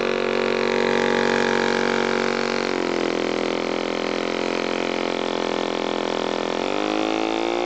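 Exposed boxer engine driving a small wooden motorboat, running steadily under way. It eases off to a lower pitch about three seconds in and is opened up again with a rising note near the end.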